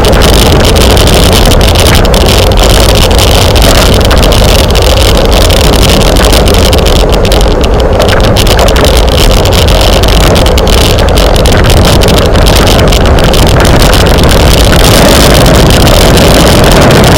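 Loud, steady wind rumble buffeting the microphone of a camera carried on a bicycle at race speed.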